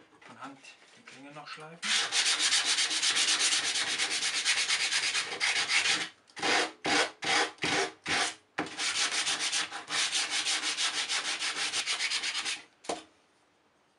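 Hand-sanding the blade of a plum-wood letter opener with a sandpaper block, in quick back-and-forth rubbing strokes. It runs in two long stretches with a few separate, slower strokes between them, and stops about a second before the end.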